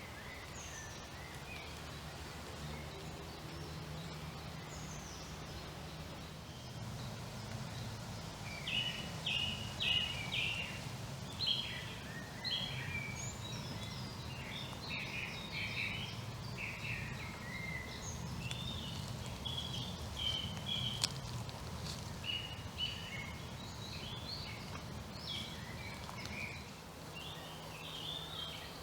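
A songbird singing, a long run of short, varied high notes starting about eight seconds in, over a low steady background rumble.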